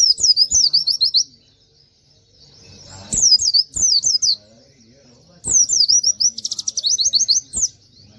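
White-eye (pleci) singing in three bursts of rapid, high, repeated downslurred notes, the last burst breaking into a short buzzy rattle before it ends.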